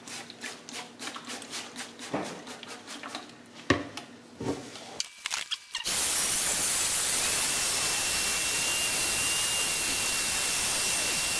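A trigger spray bottle squirting water several times in quick strokes. About six seconds in, a corded handheld rotary tool with a round sanding pad starts up and runs steadily with a loud hiss and a thin high whine as it wet-sands a plastic headlight lens.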